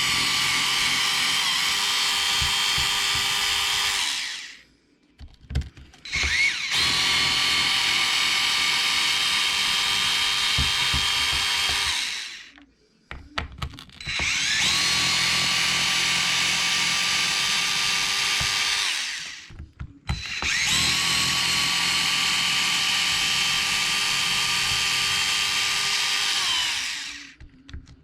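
Cordless power driver running in four long runs of several seconds each, spinning up and winding down every time, with small clicks in the short gaps between, backing screws out of an RC truck's chassis.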